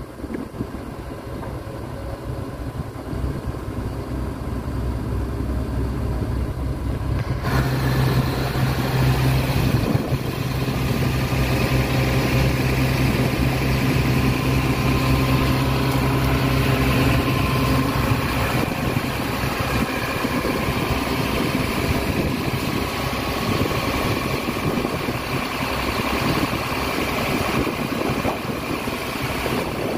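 Fuso boom truck's diesel engine running steadily, powering the truck-mounted crane's hydraulics. It becomes louder and fuller about a quarter of the way in.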